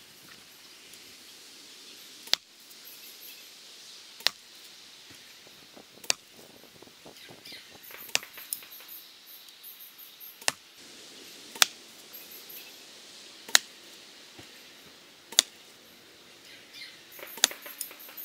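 A series of sharp knocks, about one every two seconds and ten in all, with faint rustling in dry leaves between them.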